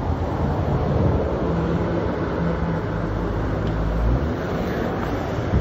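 Wind rushing over the microphone of a moving rider, over the steady hum of city traffic, with vehicle engines passing and a heavier low rumble swelling and dropping about four seconds in.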